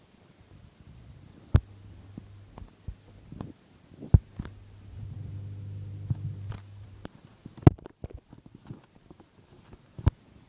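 A low steady hum with a few sharp knocks over it, the loudest about a second and a half, four, seven and a half and ten seconds in.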